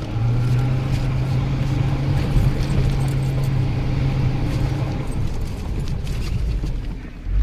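Off-road SUV engine revving up and held at a steady drone under load for about five seconds, then easing off.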